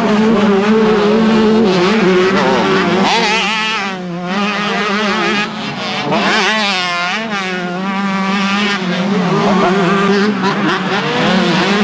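Motocross bike engines racing, the engine note rising and falling as riders rev through the track. One bike passes close around the middle.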